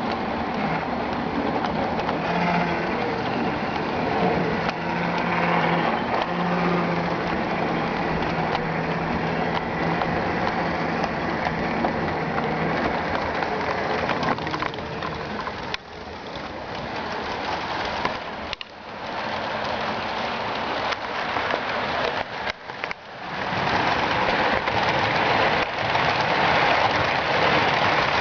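HO scale model trains running on the layout, with a steady rumbling clatter of wheels and motors on the track. The sound drops away briefly a little past halfway, then comes back louder for the last few seconds.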